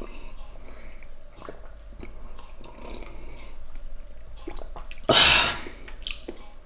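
A person drinking from a glass: faint sips, swallows and small mouth sounds. About five seconds in comes one loud, breathy exhale lasting about half a second.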